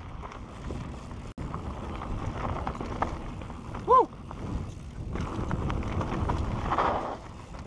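Santa Cruz Bronson mountain bike descending a dirt singletrack at speed: the tyres roll and crunch over the trail and the bike rattles and clicks over bumps, with wind on the microphone. A short squeak about four seconds in is the loudest moment.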